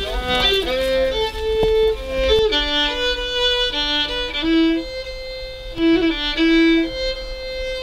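Background music: a solo melody of held notes, with a few gliding notes in the first second.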